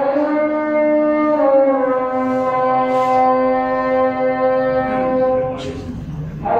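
A muezzin's voice chanting the call to prayer (adhan), holding long sustained notes that shift slowly from pitch to pitch. There is a short break near the end before the next phrase begins.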